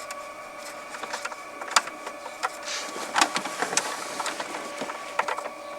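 Scattered clicks and light knocks of hands working plastic dashboard trim into place, irregular and a second or so apart, over a faint steady hum.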